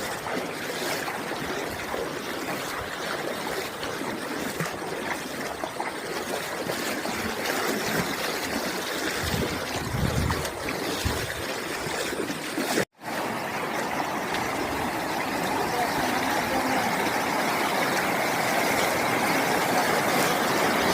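Floodwater flowing across a road in a steady, noisy rush. It cuts out for a moment about two-thirds of the way through, then comes back slightly louder.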